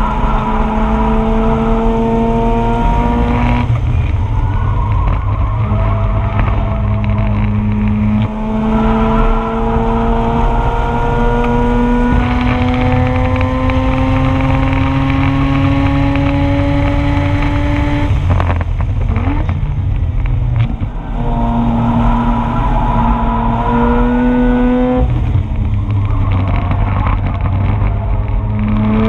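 Mazda RX-8's two-rotor Wankel rotary engine pulling hard at full throttle, its pitch climbing through the gears with upshifts about four, six and eight seconds in. About two-thirds through it lifts off and drops in pitch for a corner, then climbs again with two more upshifts.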